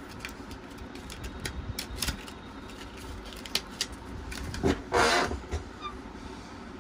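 Small clicks and knocks of a RAM module being handled and seated into a Dell OptiPlex 790 desktop's motherboard memory slot, with a louder scraping rustle about five seconds in.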